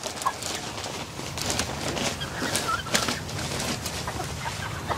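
Plastic wrapping on a bale of coop bedding crinkling and rustling as it is pulled open by hand, with a run of crackles throughout. Chickens cluck softly around it.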